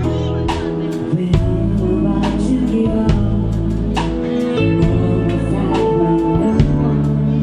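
Live band playing background music: a steady bass line under sustained chords, with a beat.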